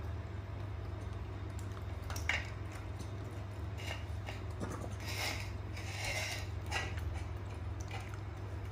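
Macaques eating dragon fruit: soft, wet chewing and a few light clicks and scrapes on plates, about two seconds in and again between five and seven seconds, over a steady low hum.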